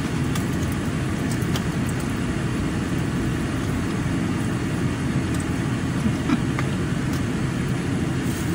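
Steady low hum of a car's air conditioning running inside the cabin, with a few faint clicks of eating.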